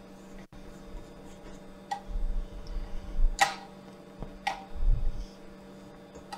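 Rubber spatula stirring a thick cream cheese mixture in a stainless steel mixing bowl, scraping and knocking against the metal with three sharp clicks and a few dull thuds. A steady low hum runs underneath.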